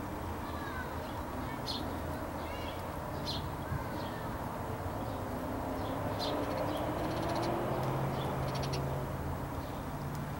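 A handful of short, scattered bird calls over a steady low outdoor rumble.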